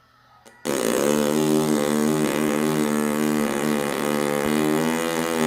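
A long, loud fart that starts abruptly under a second in and holds one steady buzzing pitch.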